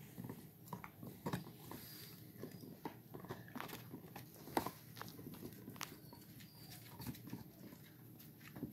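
Two puppies gnawing hard chew bones: irregular scraping and clicking of teeth on the bones, with one sharper click about four and a half seconds in.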